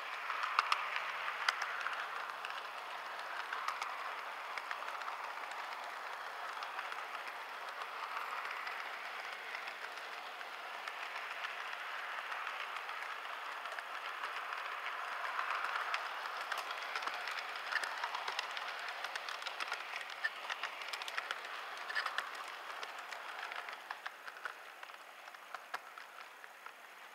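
Model train running along the layout's track, heard from a camera riding on it: a steady whirring rattle with scattered clicks, getting quieter a few seconds before the end.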